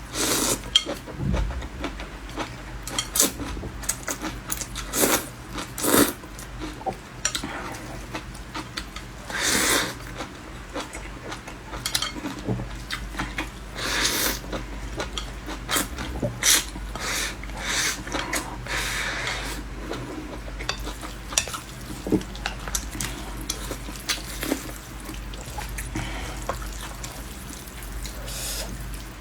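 Eating utensils clinking and scraping against a bowl of noodles and rice: many short clicks spread throughout, with a few longer scraping sounds.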